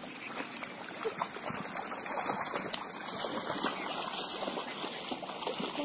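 Muddy water splashing and trickling, a steady run of small watery clicks and patters.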